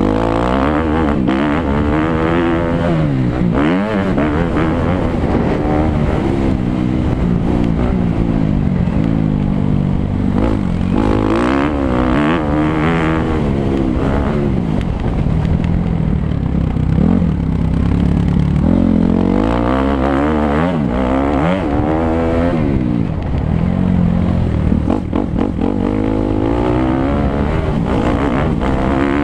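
Suzuki 250 motocross bike engine revving up and falling back again and again as it is ridden around a dirt track, its pitch rising and dropping every few seconds.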